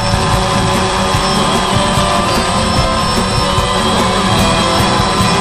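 DJI Phantom quadcopter's four electric motors and propellers whining steadily in flight, heard loud and close from the camera mounted on the drone itself.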